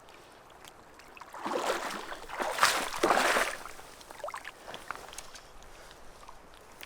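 Water splashing and sloshing in two close surges about one and a half and three seconds in, with small scattered clicks around them.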